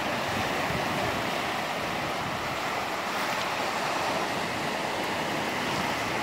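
Ocean surf breaking and washing in over shoreline rocks, a steady wash of water noise.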